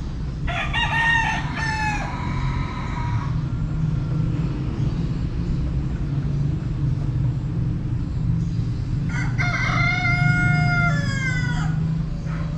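A rooster crowing twice, two long calls several seconds apart, each trailing off at the end, over a steady low rumble.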